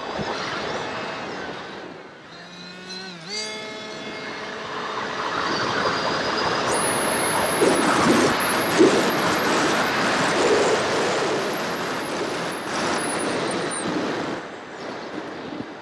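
Electric motor and propeller of an FPV model aircraft, heard through its onboard camera: a pitched whine that dips and climbs again with the throttle about three seconds in. From about four seconds a loud rush of wind noise builds, with a thin high whine on top from about seven seconds until it eases off near fourteen seconds.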